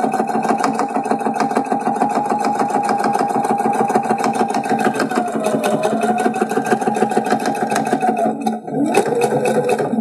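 Electric home sewing machine stitching forward along a seam: a steady motor whine over a rapid, even clatter of needle strokes. It slows briefly about halfway through and again near the end, picks up once more, then stops.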